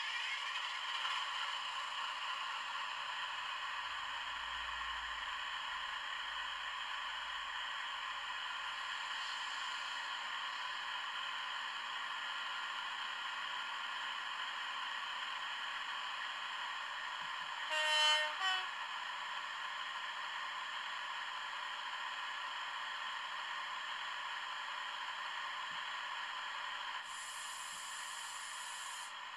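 Digital sound of a Class 68 diesel locomotive, played by a LokSound 5 Micro decoder through a tiny sugarcube speaker in an N gauge model: the engine runs steadily at a constant pitch. About two-thirds of the way through, a short horn blast is the loudest sound, and near the end a high hiss starts.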